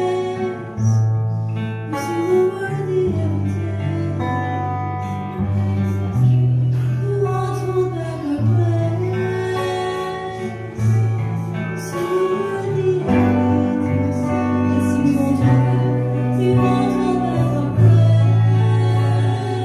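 Live worship music: singing over guitar, with held bass notes that change every second or two.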